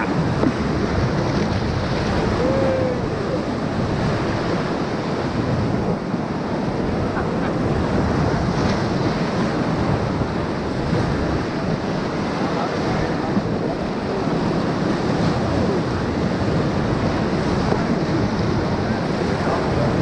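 Whitewater rapids of the Ocoee River rushing and churning around an inflatable raft held in a breaking wave: a steady, loud rush of water that holds at one level throughout.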